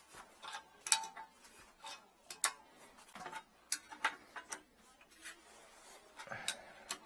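Adjustable wrench clicking and clinking against brass nuts and a sheet-metal heating-manifold bracket as the nuts are turned: a dozen or so irregular sharp metallic clicks, the loudest about one and two and a half seconds in.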